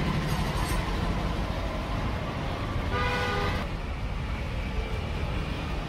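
Steady road traffic running, with a vehicle horn sounding once, briefly, about three seconds in.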